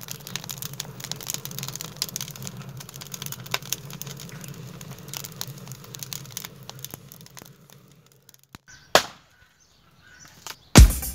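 Wood fire crackling, many small pops and snaps over a low steady rumble, fading out after about eight seconds. Then a single sharp knock, and a loud heavy thump near the end.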